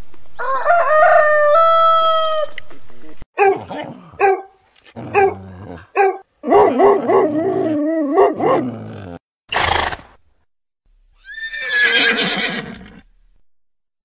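A rooster crowing once for about three seconds, then a dog making a series of short, wavering whining and howling calls, a brief sharp noise, and a horse whinnying near the end.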